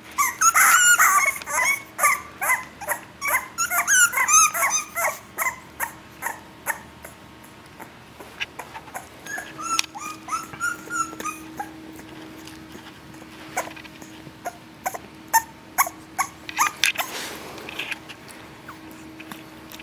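Young English Bulldog puppies whimpering in many short, high calls, packed densely over the first six seconds, with a few more drawn-out calls around ten seconds in. Scattered light ticks and knocks run through it.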